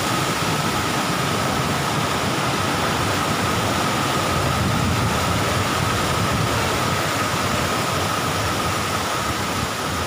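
Mountain stream rushing and splashing over large boulders below a waterfall: a steady, even rush of white water.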